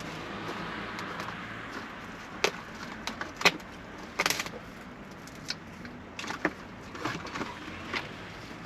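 Steady vehicle cabin hum with a scattering of short sharp clicks and rustles, the loudest about three and a half seconds in.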